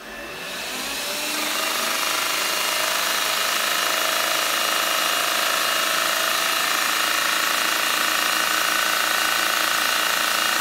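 AEG i360 vacuum cleaner running its brush-roll clean function: the motor and brush roll spin up over the first second or two, then run steadily with a whine.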